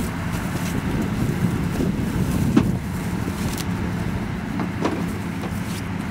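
Truck engine running steadily, with wind buffeting the microphone and a few sharp knocks, the loudest about two and a half seconds in.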